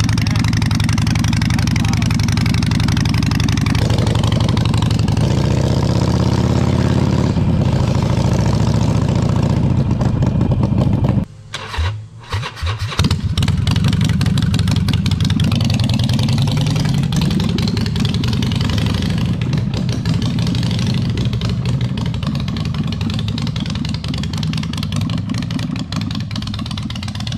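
Harley-Davidson Forty-Eight Sportster's air-cooled V-twin running loud through unbaffled straight drag pipes, idling and revved several times, in its first run after a cold start. About eleven seconds in the sound cuts out briefly, then the engine runs again and grows quieter as the bike pulls away.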